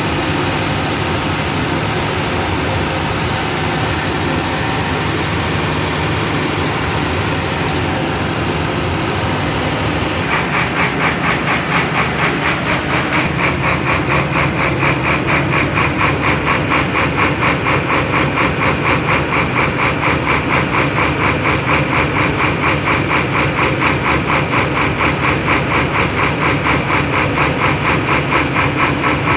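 Engine running steadily. About ten seconds in, a fast, regular clatter sets in and keeps going, the kind of tapping noise the owner puts down to the tappets.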